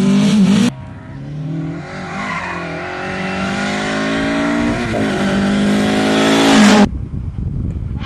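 Ford Escort Mk1 rally car's engine accelerating hard on the approach, its pitch climbing through the gears with two brief dips at the shifts and growing louder until it cuts off suddenly near the end. In the first second another rally car passes loudly close by, and in the last second a more distant car is heard.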